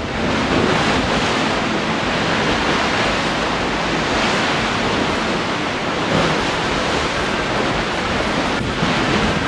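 Strong wind of force 7 to 8 blowing across the microphone, mixed with the rush of rough, whitecapped sea and churning water below: a loud, steady noise with gusty low buffeting.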